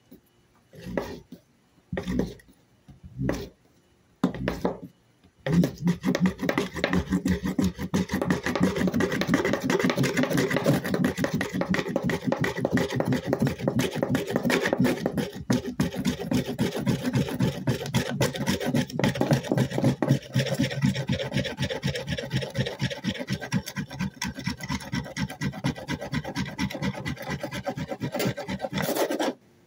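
Wooden board rolling a wood-ash-dusted cotton roll back and forth on a plywood tabletop, a fire-roll friction fire: a dry rasping rub as the friction heats the cotton toward an ember. A handful of slow separate strokes first, then a long run of fast, even strokes that stops suddenly near the end.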